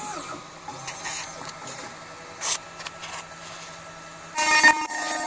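CNC router being set up: light clicks, a low steady hum and a few short gliding motor whirrs. About four seconds in, a loud steady machine whine starts abruptly and keeps running.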